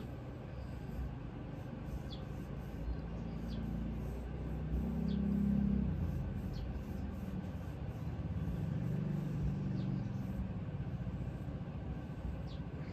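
Tissue rubbed back and forth over a Remington 1100 shotgun's steel receiver while cold-bluing solution is wiped on, a soft rhythmic rubbing at a few strokes a second with a few faint squeaks. A low rumble swells about five seconds in and again near ten seconds.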